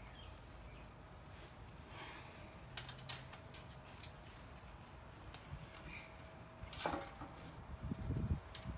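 Faint, scattered clicks and light knocks of a bolt and the garden tractor's grill shroud being handled while the bolt is worked into place, with one sharper click about seven seconds in.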